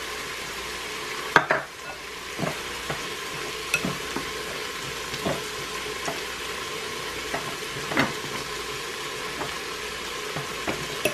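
Onions sizzling steadily as they sauté in an Instant Pot, with a metal fork clinking a few times against a glass mixing bowl as ground meat is mixed.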